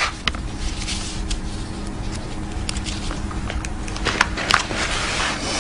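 Paper rustling and crackling with a few sharp little clicks, over a steady hiss: the pages of a book being turned back by hand.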